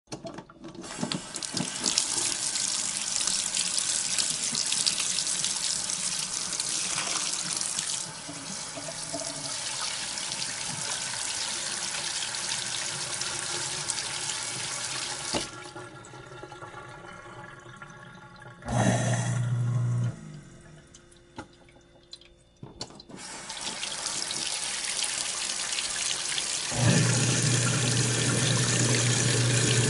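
Kitchen sink tap running into the basin, its flow changing several times: it eases off, is nearly shut, gushes briefly, stops, then is opened again and runs at full flow. A low steady hum sounds along with the water at the two fullest flows.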